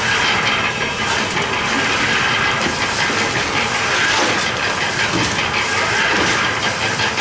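Electric concrete mixer running, its rotating drum tumbling a concrete mix in a steady rattling hiss, with occasional scrapes of shovels digging into dry mix.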